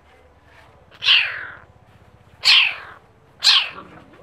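A kitten calls three times, with short, high-pitched cries about a second apart. Each cry starts sharply and falls in pitch.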